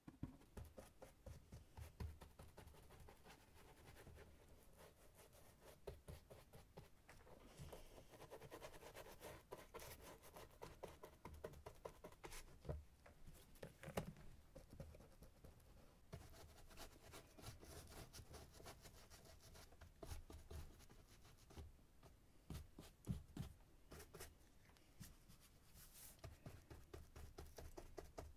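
Faint handling noises: light scratching with many small, irregular taps and clicks.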